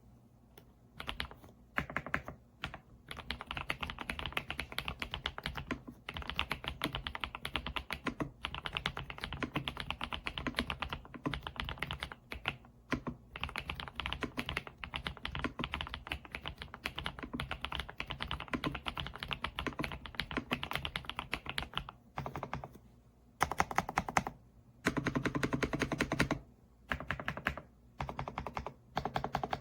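Typing on a Kisnt gasket-mounted wireless mechanical keyboard with stock linear switches: rapid, near-continuous keystrokes, with a few short, louder runs of keystrokes near the end.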